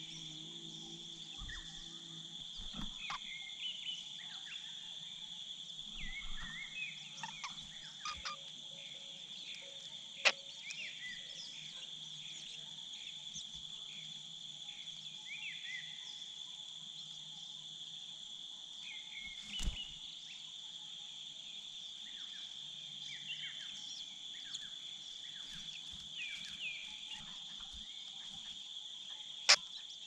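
Steady high-pitched insect chorus, like crickets or cicadas, with scattered short bird chirps over it. Three sharp knocks stand out, about ten seconds in, about twenty seconds in, and near the end.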